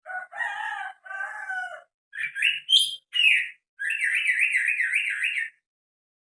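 Green leafbird (cucak hijau) calling: two harsh, lower notes, then a run of quick varied notes rising in pitch, ending in a warbling trill that wavers about six times a second and stops near the end.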